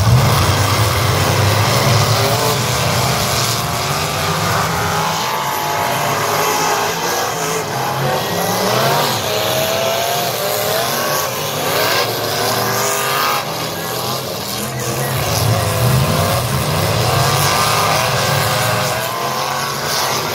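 Several V8 derby cars' engines revving and running on a dirt track, their pitches rising and falling over one another.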